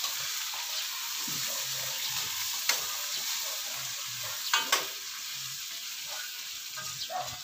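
Pork fat and oil sizzling steadily in a frying pan as the fat renders out, with a couple of short sharp clicks partway through.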